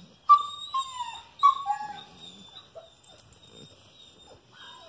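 Great Pyrenees/German Shepherd puppy whimpering: a few short, high whines that fall in pitch, the loudest about a third of a second in and again about a second and a half in, with a fainter one near the end.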